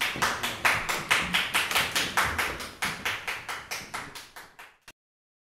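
Applause from a small audience, each clap distinct, thinning out and cutting off near the end.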